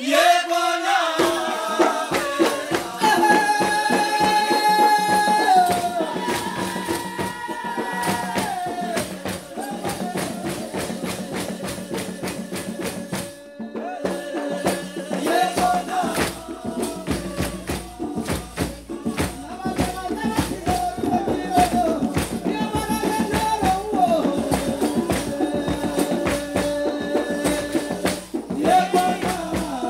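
Music: a held, slowly stepping melody over a fast, steady shaker rhythm.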